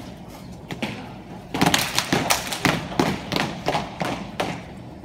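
Step team stepping: sharp stomps and claps on a hard floor, a few spaced strikes and then a fast, loud run of them about a second and a half in.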